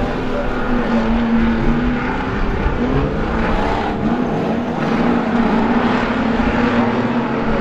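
Several street stock race cars' engines running together as they lap the track, overlapping engine notes rising and falling as the cars accelerate and pass.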